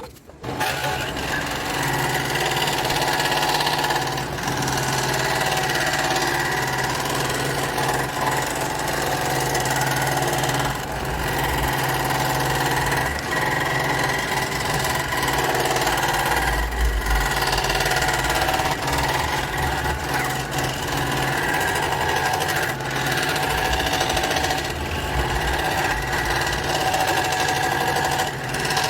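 Scroll saw running and cutting PVC pipe, a steady mechanical buzz that starts about half a second in.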